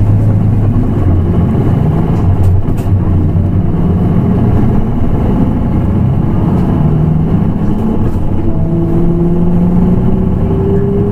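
Nissan Diesel PKG-RA274KAN city bus running under way, its diesel engine a steady drone, with engine tones rising slowly in the second half as it gathers speed. A few light clicks about two and a half seconds in.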